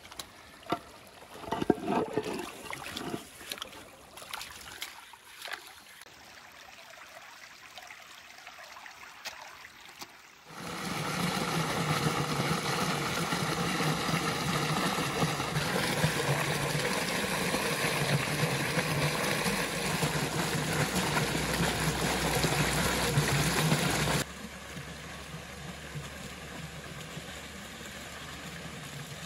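Shallow stream water splashing, with a few sharp knocks early on as a slate slab is handled. About a third of the way in a loud, steady rush of water from a small fountain jetting up out of a pipe among rocks takes over, and it turns softer but keeps running about five seconds before the end.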